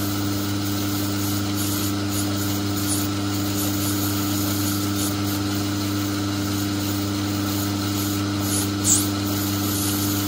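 Myford lathe running steadily with a light turning cut on a brass bar under a very slow power feed: a steady hum from the motor and drive, with a faint scraping from the cutting tool over it. A brief louder scratch about nine seconds in.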